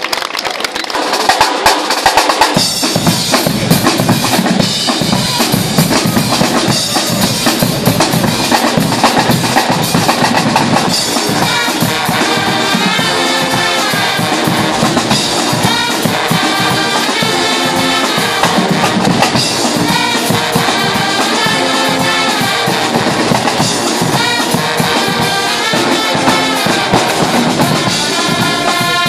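Guggenmusik band playing loud carnival music on brass and drums: sousaphones, trumpets and trombones over bass drum, snare and cymbals. The full band comes in about two seconds in, with a steady driving drum beat under the brass melody.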